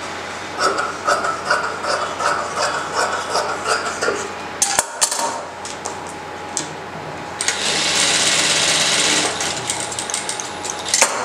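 Cloth handled at a sewing machine, with a run of quick clicks and rustles, then an industrial single-needle sewing machine runs a short steady burst of stitching for about two seconds. A few sharp clicks come near the end.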